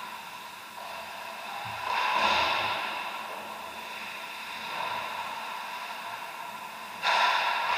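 Ice rink ambience during a hockey game: skates scraping and carving the ice over a steady hum. There are louder surges of scraping about two seconds in and a sudden one about seven seconds in.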